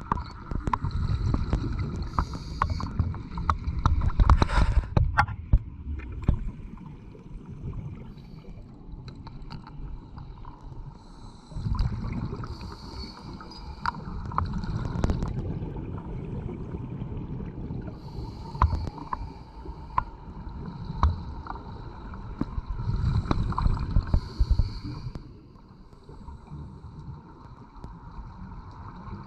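Scuba diver breathing through a regulator underwater: exhaled bubbles rumble and gurgle past the camera in surges every several seconds, with scattered clicks in between.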